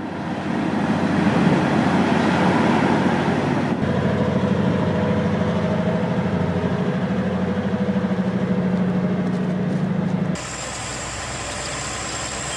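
Heavy diesel engines running steadily, with a strong low hum. The sound changes abruptly twice, and a thin high whine joins it for the last couple of seconds.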